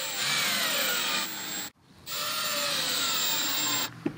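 Cordless drill driving screws with washers through a Velcro strap into plywood, in two runs with a short pause between. The motor's pitch falls during each run as the screw bites into the wood and seats.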